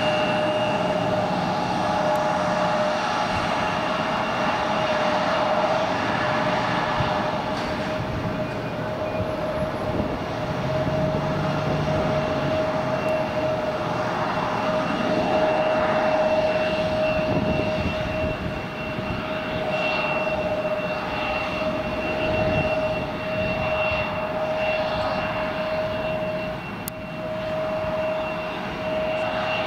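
Airliner's engines running steadily, a constant whine over a broad rush of engine noise with no build-up or fade.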